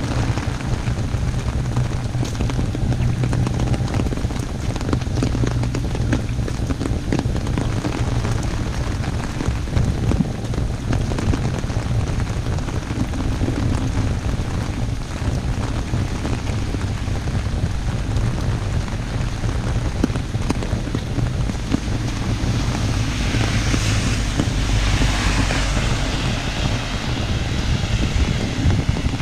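Steady heavy rain falling on an umbrella, many small taps over a constant hiss, with a low rumble of wind on the microphone. A louder hiss swells and fades a few seconds before the end.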